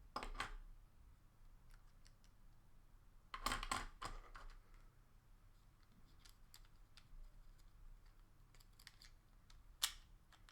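Plastic parts of a Twister Trax toy car being handled and fitted together: a few short clicks and clattering knocks, the loudest cluster about three and a half seconds in and one sharp click near the end, with faint ticks between.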